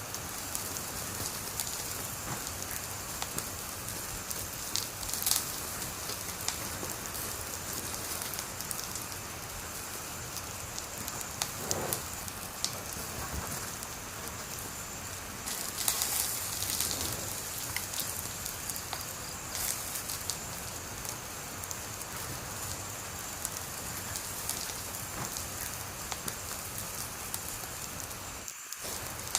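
Wood fire burning with a steady hiss and scattered sharp crackles and pops, a few louder snaps among them. The sound drops out for an instant near the end.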